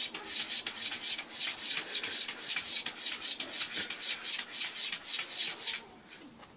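A cat's claws scratching rapidly against a wall and the edge of a wooden chest of drawers, an even rasping about four strokes a second. The strokes stop shortly before the end.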